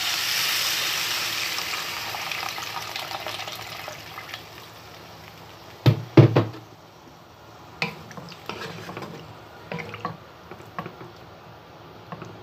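Water poured into a hot pan of fried pork belly and onions, hissing and splashing, then dying down over the first few seconds. About six seconds in come two loud knocks, then a few lighter clicks.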